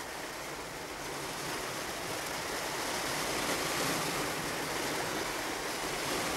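Sea surf washing below in a steady rushing noise that swells slowly.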